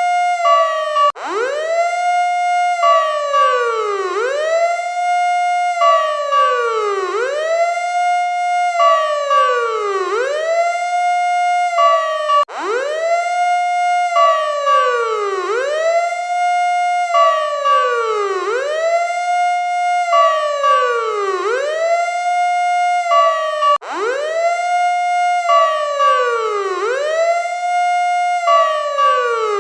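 Electronic emergency siren sounding loudly in a repeating cycle, a quick rise in pitch, a short hold, then a slower fall, about once every two seconds, with a steady higher tone sounding between the sweeps.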